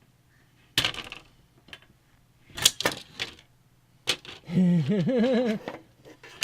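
Small metal hardware clinking and rattling in a few separate bursts, like fan screws being handled, followed about two thirds of the way in by a wavering hum-like sound lasting about a second.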